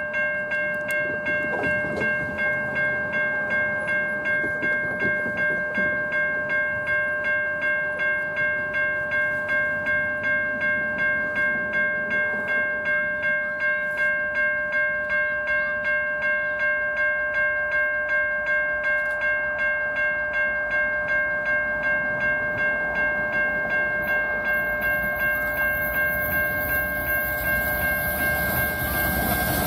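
Railroad grade-crossing warning bell ringing in even strokes, about two a second, a clear metallic ring with several steady overtones. It stops near the end as the noise of an approaching train rises.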